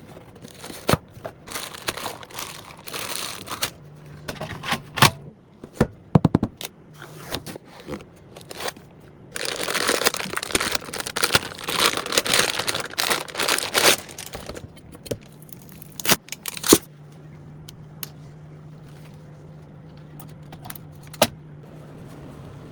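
Hands handling PC components and packaging: scattered sharp clicks and knocks, with a few seconds of crinkling and tearing plastic starting about ten seconds in. A steady low hum begins past the middle and carries on to the end.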